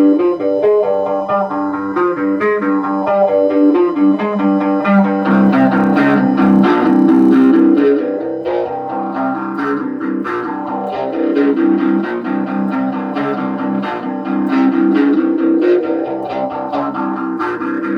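Electric guitar, a Leo Jaymz LP-style guitar through an Orange amp, playing slow doom riffs with long, sustained low notes and chords that ring into one another.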